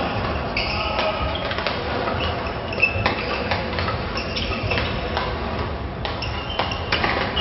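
Badminton rackets hitting a shuttlecock in a fast rally: irregular sharp clicks, several a second at times, with the hollow echo of a large sports hall.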